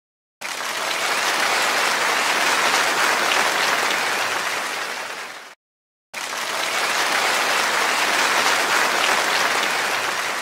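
Audience applause in two stretches of about five seconds each, each swelling and then fading out, with a brief silence between them about halfway through.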